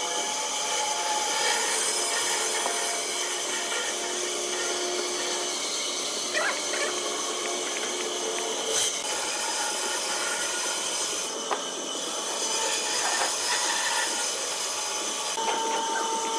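Steady whirring hiss of a machine running in a woodworking shop, with a few light wooden knocks as small glued blocks are pressed into place between slats.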